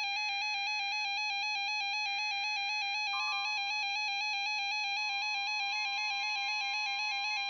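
A weather radio receiver's electronic alert alarm: a steady, rapidly pulsing high beeping tone, signalling that a new warning is being broadcast. About five seconds in, a faint steady tone joins underneath: the Weather Radio warning alert tone that comes before the new message.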